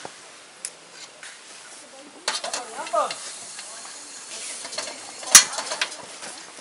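An aluminium cooking pot handled on a portable gas stove: scattered metal clicks and knocks over a low sizzle and hiss, with one sharp knock about five seconds in, the loudest sound.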